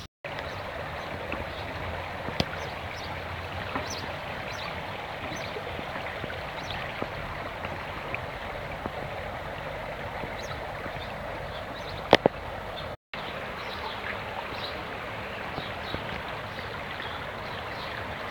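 Steady rush of running water from a swimming pool's water features (waterslides and artificial rock grotto). A sharp click comes about twelve seconds in.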